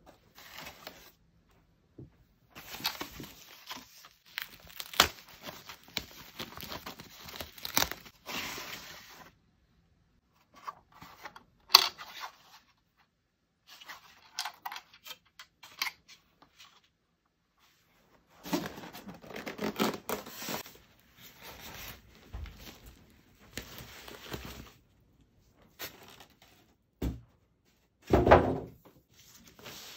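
Unboxing handling noises: plastic packaging rustling and tearing in irregular bursts, with occasional knocks as the monitor's stand parts are lifted from the foam tray and handled.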